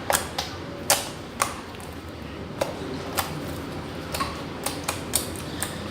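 Homemade slime being squeezed and folded by hand close to the microphone, making sharp, irregular clicks, about a dozen spread across the few seconds.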